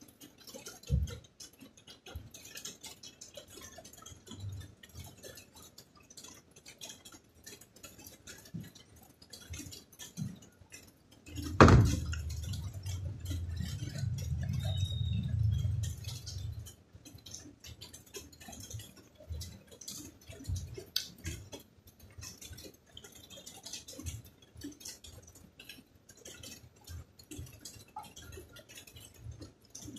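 A person eating peeled dalandan segments: quiet chewing and small clicks and taps of fingers on the fruit and plate. About twelve seconds in there is a sharp knock, then a low rumble lasting about five seconds.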